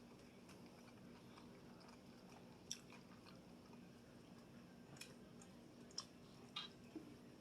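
Faint close-miked chewing of a soft taco, with about five short, sharp wet mouth clicks spread through the second half.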